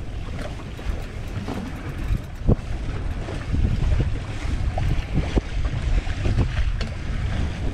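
Wind rumbling on the microphone over sea water washing against a boat, with a few short knocks, the sharpest about two and a half seconds in.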